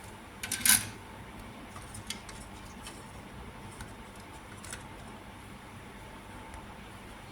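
A brief clatter of small hard objects being handled, loudest under a second in, followed by a few light ticks and taps over a steady background hiss.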